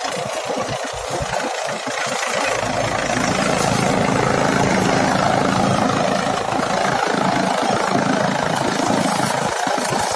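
Kubota B2441 compact tractor's three-cylinder diesel engine running a PTO-driven chaff cutter that is chopping dry stalks. About two and a half seconds in the sound grows deeper and louder as the cutter takes a load, then eases off again after the seventh second.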